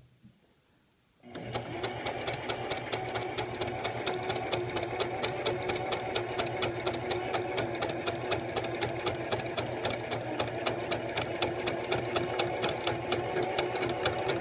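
Singer Classic Heavy Duty 44S sewing machine starts about a second in and sews steadily, its stitching mechanism ticking in a quick even rhythm, then stops at the end. It is running while its needle thread catches on the bobbin case, the fault that leaves loose stitches underneath.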